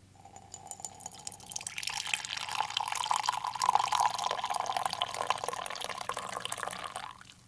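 A thin stream of liquid is poured into a ceramic mug. The sound starts faintly and grows louder about two seconds in, its pitch creeping up as the mug fills, then stops sharply just before the end.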